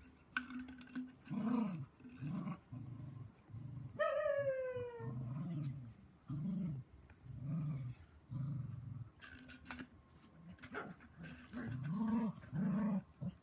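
Adult cocker spaniel growling in play, a series of short low growls about once a second, while she tussles with her puppies. About four seconds in comes one short falling yelp.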